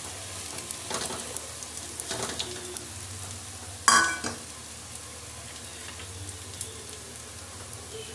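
Coarsely ground urad dal and spice paste frying in hot oil in a kadhai: a steady sizzle with light crackles. A single sharp, ringing metallic clink about four seconds in.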